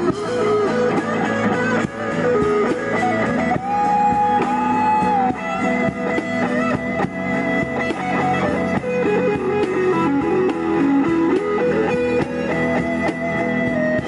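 Live band music: guitars strumming chords under a lead melody that slides and bends between notes, with one long held note about four seconds in.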